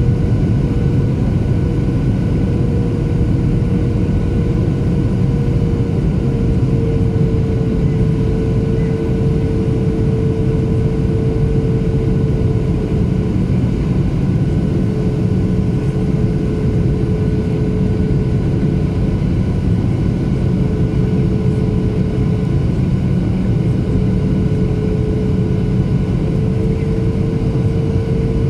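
Steady cabin noise of a Boeing 737-800 on approach, inside the cabin over the wing: the CFM56 engines' deep rush with a steady humming tone that shifts slightly in pitch a few times.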